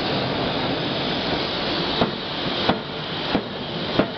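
Steady hiss and machinery din of a hot-forging line, with four sharp metal knocks about two thirds of a second apart in the second half.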